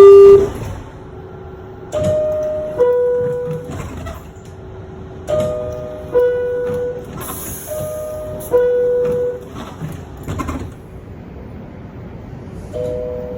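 NYC Subway R62A car's door chime: a falling two-tone ding-dong that sounds about four times. Short knocks come between the chimes, with a louder one about ten seconds in.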